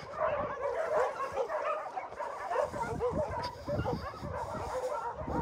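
Many dogs barking and yelping at once in a dense, overlapping chorus, with no single dog standing out.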